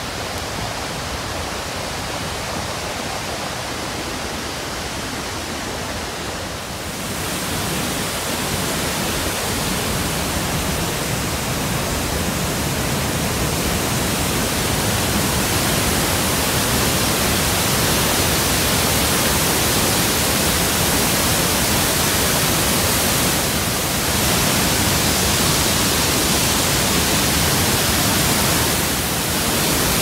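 Iguazu Falls: a steady rush of heavy falling water that grows louder about seven seconds in.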